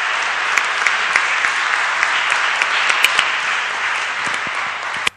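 Audience applauding: a steady clatter of many hands clapping that cuts off suddenly near the end.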